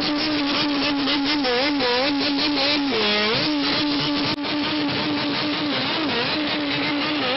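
Bosozoku gang's engines revving, the pitch swinging up and down in quick throttle blips rather than holding steady.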